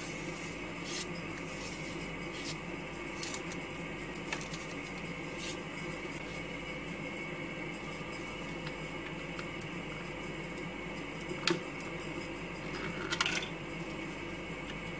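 Light clicks and rubbing from small objects being handled over a steady hum, with a sharper click and a short rattle near the end.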